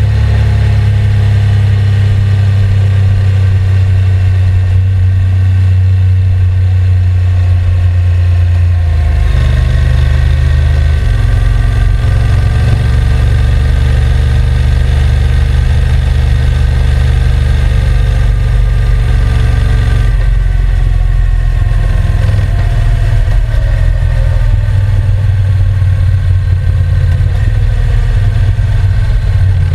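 Honda NC750X's parallel-twin engine running steadily, its low note shifting in steps a few times, about 9, 11 and 20 seconds in.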